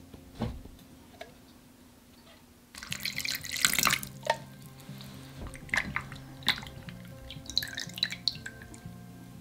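A spoon clinks once against a glass bowl. About three seconds in, a little water is poured onto shrimp coated in potato starch, running for about a second, and then comes wet sloshing and small clinks as the shrimp are rubbed in the glass bowl to clean them. Soft background music plays under it.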